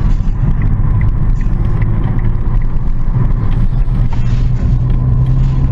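A car's engine and road noise drone steadily while driving, with a faint regular ticking about two to three times a second.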